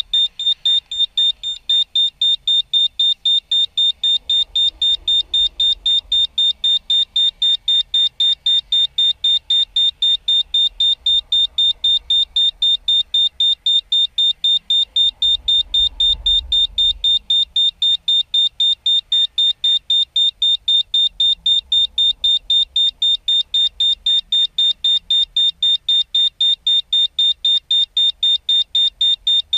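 Electronic beeper on a high-altitude balloon payload sounding a steady, rapid train of high-pitched beeps, a few a second, as the balloon climbs. A faint low rumble comes and goes beneath it.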